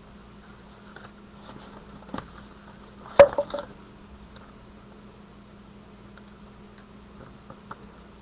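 White cardstock being handled and cut at a craft table: scattered light clicks and paper handling, with one sharp clack about three seconds in followed by two or three smaller knocks.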